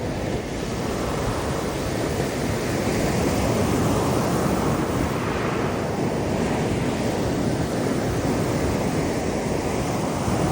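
Mediterranean sea waves washing against rocks: a steady surf rush that swells and eases every few seconds, with wind buffeting the microphone.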